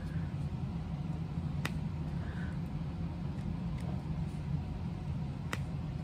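A steady low hum, with two sharp clicks a little under four seconds apart and a few fainter ticks.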